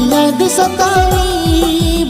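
Music from a Nagpuri sad song, an instrumental passage: a long, slightly bending melody line held over a quick, steady run of drum hits that each drop in pitch.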